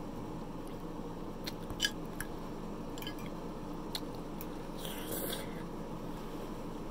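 Close-miked eating: a metal fork clicks and scrapes against a plate a few times as a piece of Salisbury steak is cut and lifted, then wet chewing and mouth noises follow. A steady low hum sits underneath.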